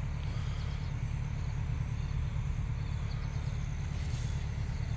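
Steady low rumble of outdoor background noise, with a few faint high chirps about four seconds in.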